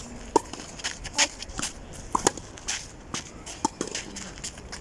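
Irregular sharp pops of tennis balls on rackets and clay, with shoes scuffing on the clay court.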